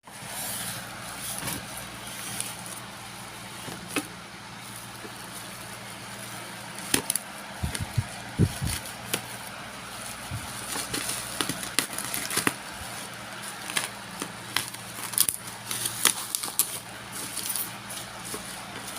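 Parcel being unboxed by hand: irregular clicks, knocks and crinkling of packaging, growing busier about a third of the way in, over a steady low background hum.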